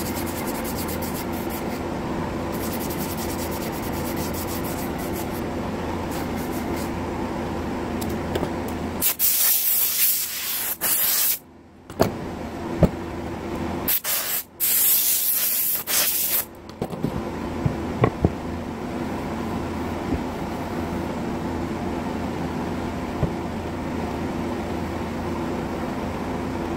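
An orbital sander running on an end-grain camphor-laurel board, then two loud blasts of compressed air from an air blow gun clearing the sanding dust, each about two seconds long. A steady machine hum runs underneath throughout.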